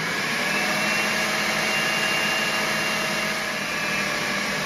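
Countertop blender motor running steadily on its dough setting, mixing pie crust dough with a steady high motor whine.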